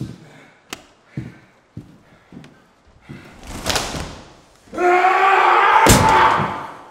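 A heavy door slam, a sharp single impact, over a loud held pitched sound that rises slightly. Before it come a few soft knocks and a swelling whoosh.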